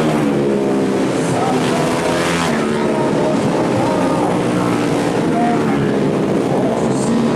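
150cc four-stroke underbone racing motorcycles passing at high revs. The engine pitch sweeps up and down as the bikes go by.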